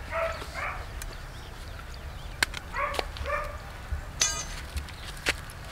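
An animal calling twice, short two-part calls about three seconds apart. A few sharp clicks and a quick rattling series come about four seconds in.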